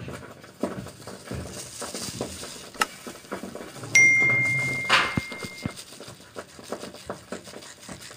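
Crinkling of a plastic glove and scattered knocks and clicks of a knife against a mango and a wooden cutting board, as the mango is handled and sliced. About four seconds in, a single bright notification chime rings and fades over under two seconds.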